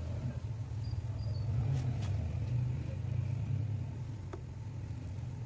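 Steady low roar of a gas ring burner running under a frying pan, with a couple of faint clicks.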